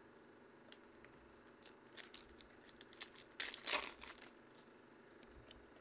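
Foil trading-card pack being handled and torn open: scattered crinkles and rustles, loudest a little past the middle.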